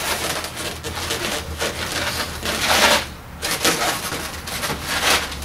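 Latex 260 twisting balloons rubbing against each other and against the hands as a finished balloon monkey is handled and adjusted: a run of irregular rustling scrapes, the strongest a little before three seconds in.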